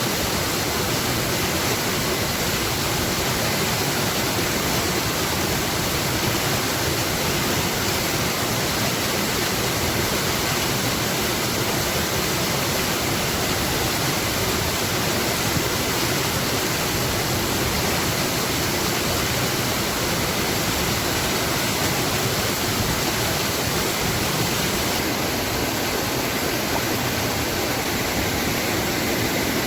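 Flowing water rushing steadily, an even unbroken hiss.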